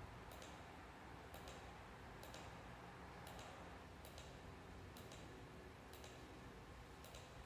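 Faint, light clicking from a handheld emergency-lightbar controller, often two clicks close together, about once a second, over quiet room tone.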